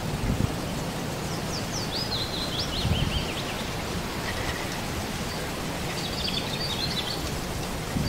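Steady wind hiss outdoors with small birds chirping: a run of quick falling chirps about two seconds in, and another burst of chirping around six seconds.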